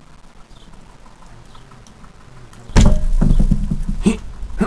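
Faint birdsong ambience, then about two-thirds of the way in a sudden loud burst of cartoon slapstick sound effects: a commotion as a fork goes out of control.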